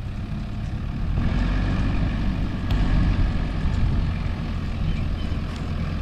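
A car's engine running hard under load, louder from about a second in, as the car, its tyres aired down, stuck in soft sand, works itself free.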